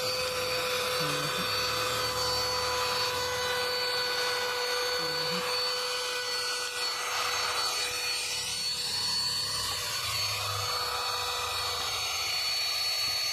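Small handheld vacuum cleaner running with a steady whine as its nozzle is worked over a dusty fan. Its small, low-powered motor gives weak suction that barely pulls the dirt out.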